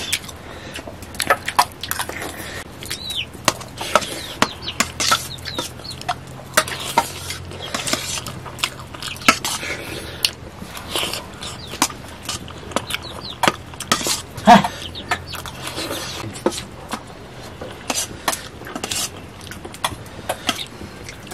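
Steel spoons clinking and scraping on stainless steel plates as two people eat rice, with a chicken clucking now and then.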